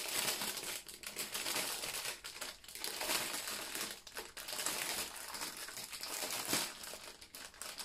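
Clear plastic packaging of diamond painting drill baggies crinkling and crackling as it is handled, with many small sharp ticks.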